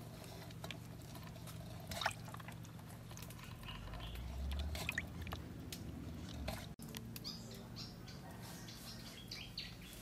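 Wet hands rubbing and peeling the skin off a scalded soft-shell turtle in a metal basin. It sounds as faint, scattered small clicks and wet rubbing noises, with a low rumble near the middle.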